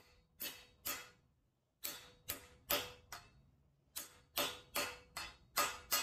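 Ball-peen hammer tapping a bronze flange bushing into the end of a 2-inch steel tube housing, driving it in as a tight interference fit. About a dozen sharp strikes come in quick runs of three to five, with short pauses between runs.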